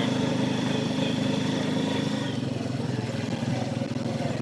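ATV engine running steadily under way on a muddy trail, with a thin high whistle from something up front, which the rider puts down to mud; the whistle fades out about two seconds in.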